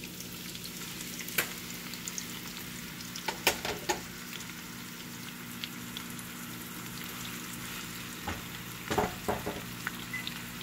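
Sliced onions sizzling steadily in hot oil in a frying pan, with a few sharp knocks and scrapes of utensils against the pan, the biggest cluster about nine seconds in as a spatula starts stirring them.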